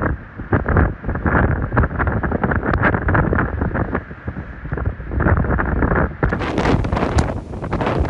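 Strong, gusty storm wind buffeting the microphone in loud, rumbling, crackling gusts; the sound turns brighter and harsher about six seconds in.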